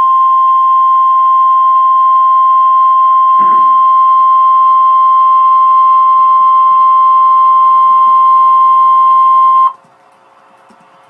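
NOAA Weather Radio / Emergency Alert System warning alarm tone: a single loud, steady tone near 1050 Hz, held for about ten seconds and then cutting off abruptly. It signals that a warning message is about to follow.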